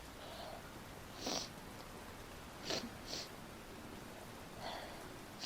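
A woman with a cold sniffling: about five short, quiet nasal sniffs and breaths a second or so apart, between fits of sneezing.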